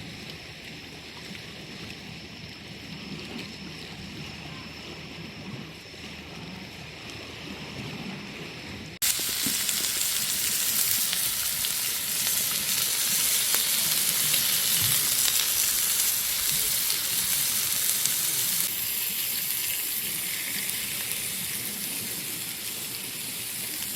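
A quiet low rushing background for about nine seconds, then an abrupt jump to loud, steady sizzling of meat frying on a hot pan.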